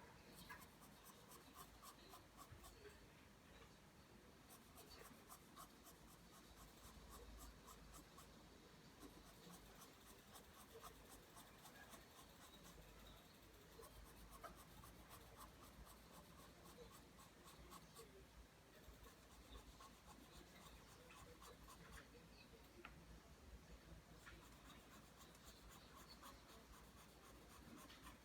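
Pencil drawing lines on paper: faint, repeated scratching strokes, many in quick succession.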